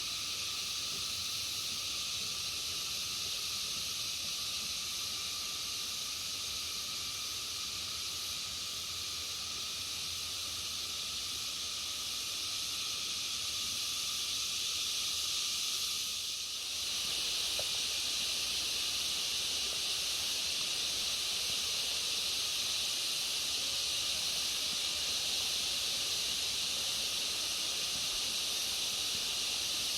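Steady chorus of forest insects with a continuous high, hissing drone. It dips briefly about halfway through, then carries on a little louder.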